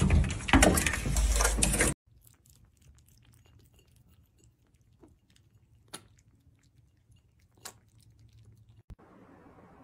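About two seconds of loud, dense clattering and scratching-like noise, which cuts off abruptly. Then comes near quiet with a few faint wet clicks as a cat and kittens lap milk from a shallow bowl. A steady hiss comes in near the end.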